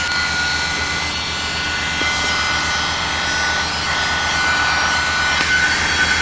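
Small heat gun running steadily, its fan blowing hot air onto a power-cable splice. The airflow rushes under a steady high whine.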